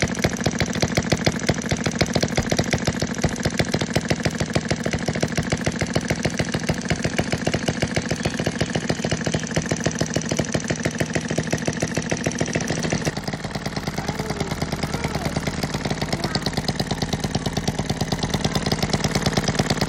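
Miniature single-cylinder hit-and-miss petrol engine running, a rapid, even stream of sharp mechanical beats. About thirteen seconds in it becomes slightly quieter and duller.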